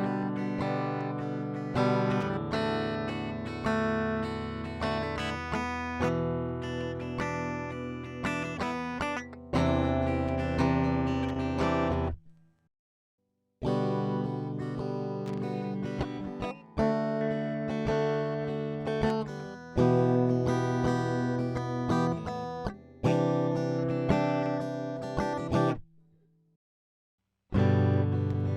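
Squier Stratocaster electric guitar played clean through a recording setup: chords struck and left to ring, changing every two to three seconds, with two brief pauses.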